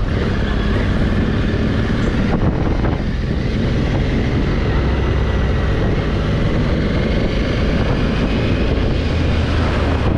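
Honda Africa Twin's parallel-twin engine running steadily while the motorcycle is ridden, with the rush of road and wind noise.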